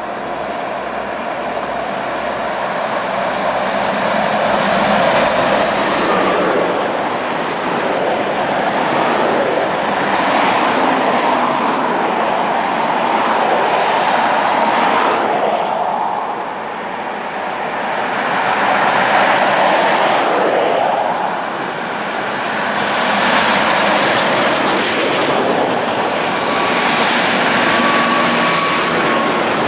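Highway traffic passing close by, heavy trucks and cars one after another. The tyre and engine noise swells and fades with each pass-by, and a road train with tipper trailers goes past near the end.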